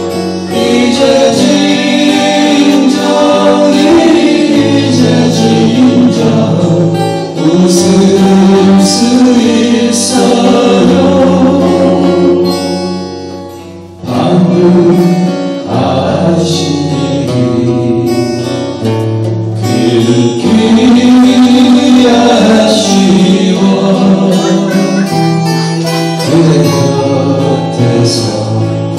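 Live acoustic folk-pop song: several steel-string acoustic guitars strummed and picked while male voices sing together. The music thins out briefly about halfway through, then comes back at full strength.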